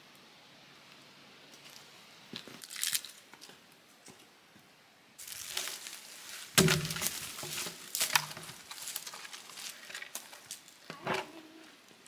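A log dropped onto the ground with a heavy thud just past halfway, surrounded by crackling and snapping of twigs and dry brush. The first half is faint, with only a few light clicks.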